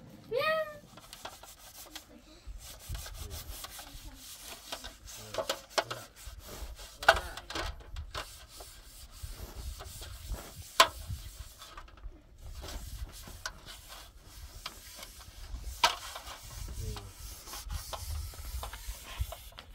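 Rubbing and scraping on a surface, with a few sharp knocks spread through it.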